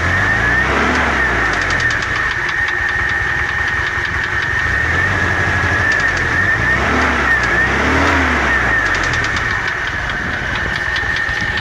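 ZMZ-406 inline-four petrol engine idling and blipped a few times, with a knock that comes through at idle and as the revs fall back. The knock shows at idle and on lifting off the throttle and goes away under load; new hydraulic lifters and fresh oil quieted it only briefly.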